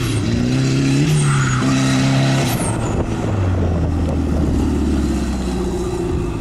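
Nissan 240SX (S13) drifting: the engine revs up and drops back several times in quick succession, with short high tyre screeches, then holds a lower, steadier note as the car slides through the turn.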